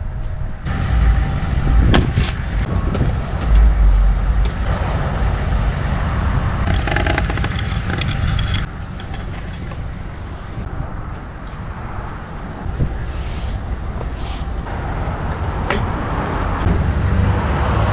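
Truck engine running with a steady low rumble, with a few sharp knocks over it.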